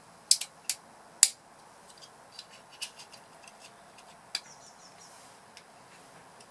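Plastic clicks and snaps of an engine ECU wiring-harness connector housing being pressed and fitted together by hand: a few sharp clicks in the first second and a half, then lighter ticks.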